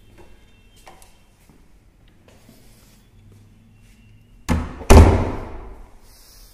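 A door being shut: a thump, then a louder slam about half a second later that dies away over about a second.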